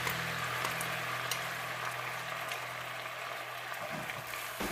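Soy-and-syrup sauce bubbling and sizzling in a hot pan: a steady hiss with faint pops, over a steady low hum.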